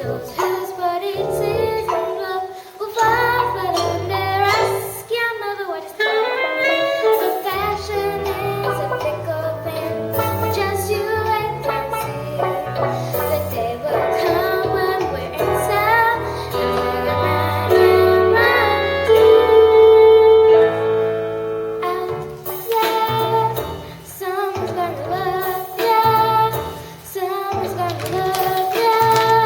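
Young performers singing a musical-theatre song over instrumental accompaniment, with a long held note about two-thirds of the way through.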